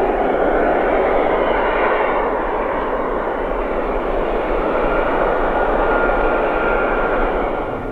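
Airbus A350-941's Rolls-Royce Trent XWB jet engines running loud, a steady dense rush of noise with a faint whining tone through it, dropping away just before the end.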